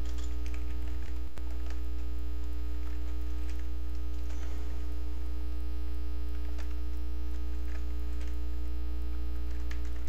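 Loud, steady low electrical mains hum on the recording, with faint scattered keyboard clicks as text is typed.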